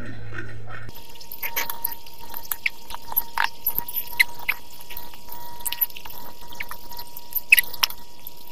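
Close-up wet mouth sounds of eating chicken feet: sucking, lip smacking and small crackling clicks as the meat and skin are gnawed off the bones.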